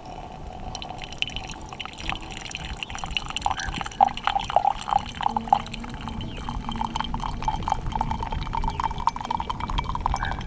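Hot coffee poured from an insulated coffee press into a ceramic mug, a steady trickling, splashing stream as the mug fills.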